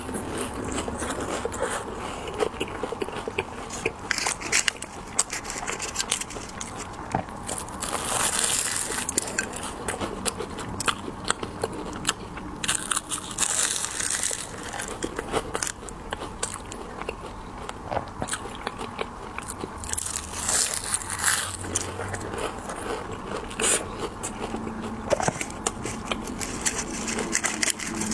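Close-miked biting and chewing of candied hawthorns, the hard sugar shell cracking in many sharp, irregular crunches and crackles.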